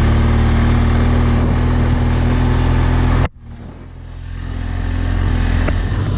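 BMW R1200GS Adventure's boxer-twin engine running steadily under way, with wind noise on the microphone. About halfway through the sound cuts off abruptly and comes back much quieter, building up again as the bike pulls.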